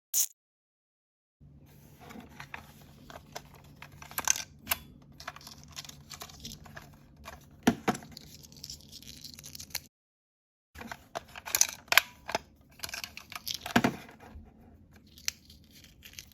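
Blind-bag packaging being torn open and crinkled by hand: dense plastic rustling with sharp rips and snaps, cut off for about a second midway, then resuming.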